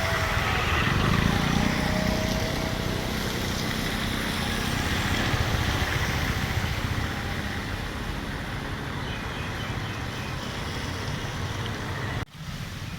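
Street traffic: vehicle engines running with steady road noise, cut off abruptly a little after twelve seconds in and then resuming.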